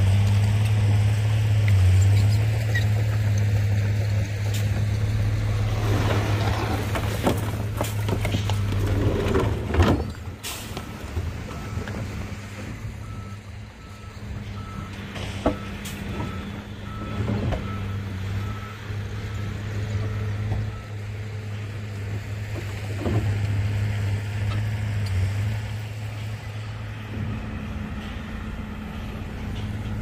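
Diesel engines of heavy earthmoving machines (dump truck and bulldozer) running with a steady low drone, loudest in the first third, with a reversing alarm beeping at an even pace through the middle and a few sharp knocks.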